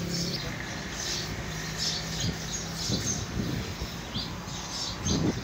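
Birds chirping repeatedly over a low steady hum that stops about three seconds in, with a few soft knocks as the heavy truck tyre is handled.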